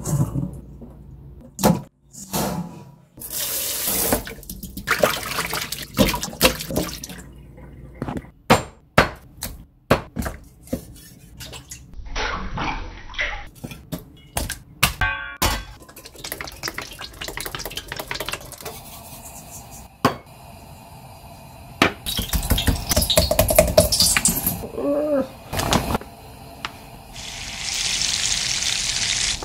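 Kitchen prep sounds: water running and splashing as a whole raw chicken is washed in a stainless steel bowl, with many sharp knocks and clicks of handling throughout. A steady hiss comes near the end.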